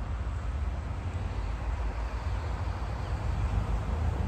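Diesel freight locomotives approaching, their engines giving a steady low rumble.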